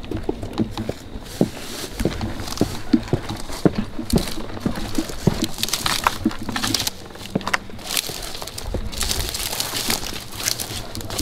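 Footsteps pushing through dry weeds and tall grass, with dry stalks crunching and snapping underfoot in an irregular run of crackles.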